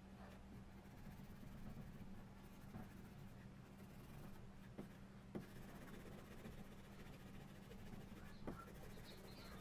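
Faint scraping of a small hand tool rubbed along a flat metal part of an old Hasler Bern railway speedometer as it is cleaned, with a few light clicks as the tool catches the metal.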